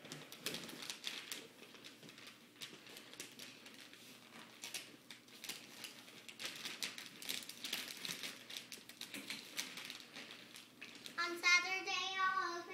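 Wrapping paper crinkling and rustling as a toddler handles it around a gift box. About eleven seconds in, a young child's high voice comes in, drawn out in a held, sung tone.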